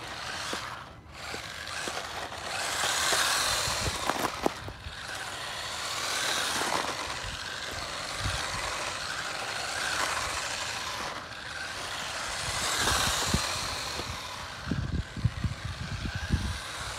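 Small brushed electric motor whining, with tyre noise on rough asphalt, from a 1/16-scale SG-1603 RC drift truck running on street tyres. The sound swells and fades about four times as the car passes back and forth, and there are a few low thumps near the end.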